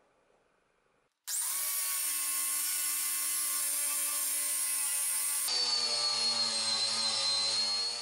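Angle grinder fitted with a green non-woven abrasive disc, running against the steel blade of a cleaver. It gives a steady high whine that starts suddenly about a second in and changes in tone about halfway through.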